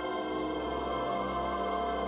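Background music from the Disneyland Hotel in-room TV welcome screen: slow, sustained chords held steadily.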